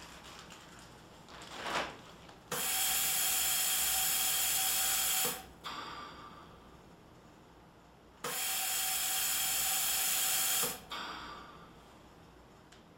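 Bird Mark IPPB ventilator delivering two machine breaths. Each breath is a loud, steady gas hiss of about three seconds that starts and stops abruptly, with a fainter hiss fading away between them.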